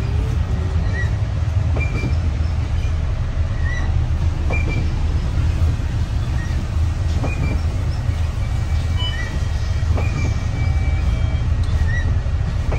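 Steady low rumble of a running vehicle or train, with faint short high chirps about every second.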